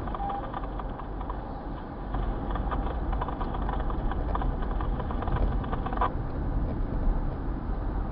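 Car on the move, heard from inside the cabin: a steady low rumble of road and engine noise, with a crackly hiss over it that cuts off suddenly about six seconds in.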